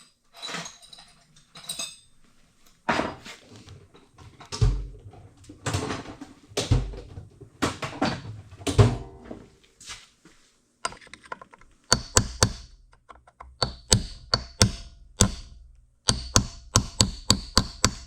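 Metal tools clattering and knocking as they are handled, then a quick series of sharp hammer taps with a metallic ring in the second half: a hammer on a pin punch, driving a roll pin out of a cast gearbox housing.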